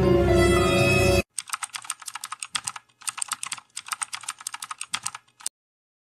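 Music that cuts off abruptly about a second in, followed by about four seconds of rapid keyboard typing clicks, a typing sound effect as the name is spelled out on screen; the clicking stops shortly before the end.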